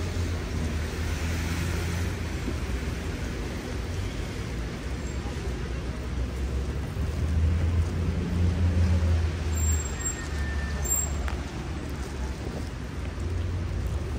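Street traffic on a rain-wet road: passing cars with tyre hiss over a low engine rumble that swells twice, at the start and loudest about eight seconds in.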